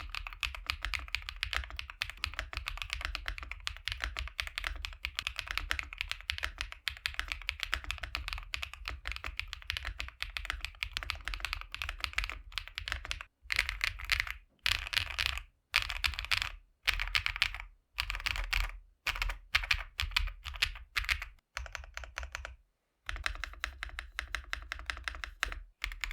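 Typing on an Akko Mineral 01 mechanical keyboard with hand-lubed Akko Creamy Yellow U1 linear switches and an FR4 plate, its removable foam layers out and a plain film in place of the foam-covered one, giving a clacky, poppy sound. Fast continuous typing for about the first thirteen seconds, then short bursts of typing with brief pauses between them.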